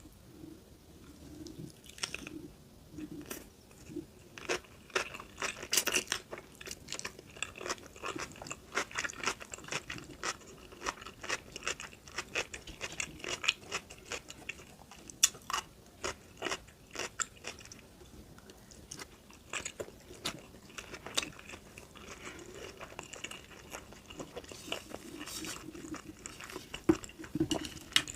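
A person chewing and biting sushi close to the microphone, with irregular crunchy bites and mouth clicks coming several times a second.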